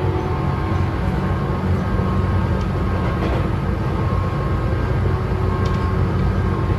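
Tobu 9000 series electric train running, heard inside a motor car: a steady rumble of wheels on rail with thin steady tones from its chopper control, a sound likened to that of a JR 201 series.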